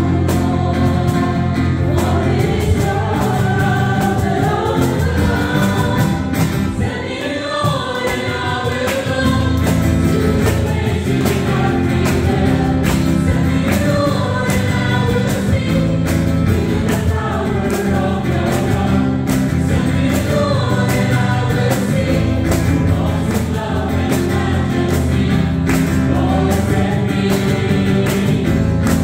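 Group singing of a gospel praise song, the chorus, with instrumental accompaniment and a steady beat.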